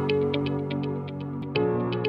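Background music: an electronic synthesizer track with held chords under a quick, even ticking beat, the chords shifting about one and a half seconds in.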